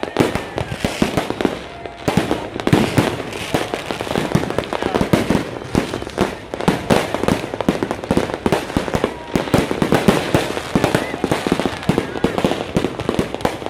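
Fireworks going off in a dense, continuous barrage: many bangs and crackles every second, with no pause.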